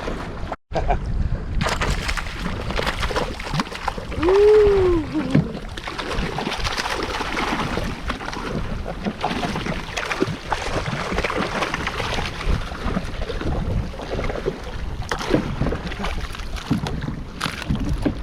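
Wind buffeting the microphone over open water around a kayak, with scattered knocks and small splashes from handling gear. Briefly cut out just under a second in; about four seconds in, a short rising-and-falling vocal sound is the loudest moment.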